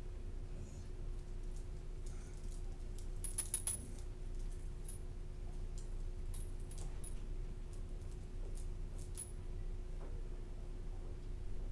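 Metal dog tags on a harness jingling in several short clusters as the dog moves, loudest about three and a half seconds in. A steady low hum runs underneath.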